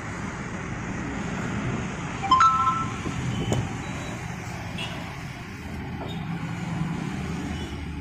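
Steady low background rumble of road traffic, with a brief two-note tone about two and a half seconds in and a single sharp knock about a second later.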